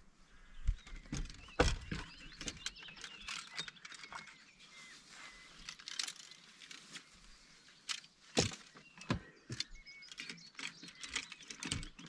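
Fishing rods and gear being handled and loaded into a car boot: irregular clattering knocks and rustling, loudest about a second and a half in and again about eight seconds in.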